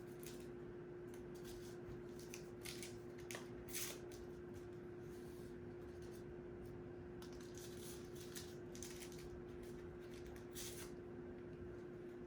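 Small paper stevia packets being torn open and shaken out, faint scattered crinkling and rustling of paper, with a few sharper rips. A steady low hum runs underneath.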